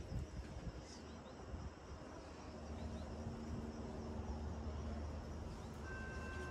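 Outdoor ambience: a steady low rumble that swells a little partway through, with faint insect chirring. Near the end a steady high tone with several pitches starts.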